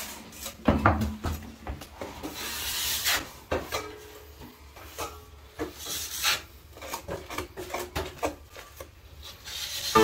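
Steel trowels scraping and spreading premixed topping compound, scooping it off a hawk and smoothing it across a plasterboard ceiling: a string of irregular scraping strokes.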